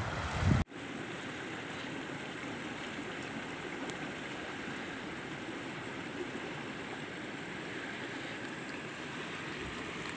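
Steady rush of a shallow river running over rocks. For the first half second, wind rumbles on the microphone, then cuts off abruptly.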